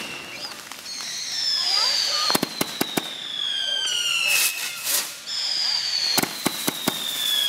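Multi-shot consumer firework cake firing. There are two long whistles, each falling in pitch, with quick runs of sharp cracks and bangs between them and a loud crackling burst midway.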